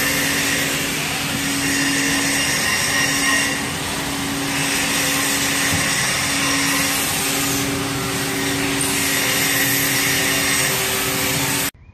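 Pump of a guided bend-test machine running steadily, a loud hum and hiss, as its ram bends a welded pipe test coupon into the die. The sound cuts off suddenly near the end.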